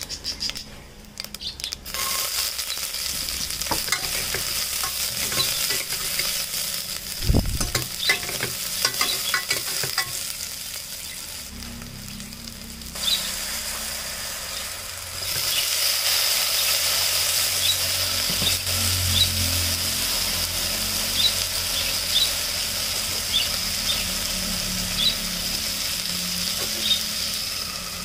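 Hot oil sizzling and spattering in a pressure cooker as spice seeds, then chopped onions and ginger-garlic paste, fry, with many small pops. A dull thud comes about seven seconds in, and the sizzle grows louder a little past halfway.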